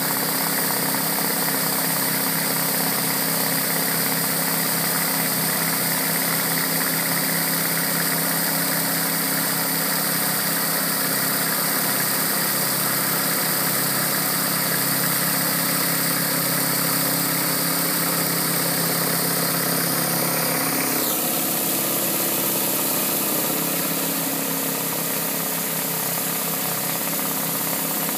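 Pressure washer engine running steadily under the loud hiss of water jets from a rotary surface cleaner scrubbing clay roof tiles. About three-quarters of the way through, the high hiss falls away in a falling whine while the engine hum carries on.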